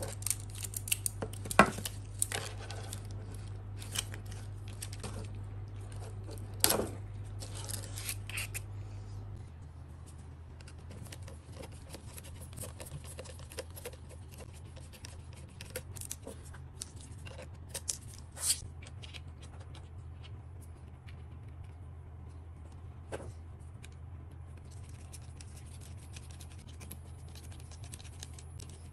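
Small clicks, taps and scrapes of a small screwdriver and tweezers working on the plastic body and arm mount of a DJI Mini 3 Pro drone being taken apart. The clicks come thick and sharp in the first nine seconds and sparser after, over a steady low hum that shifts about nine seconds in.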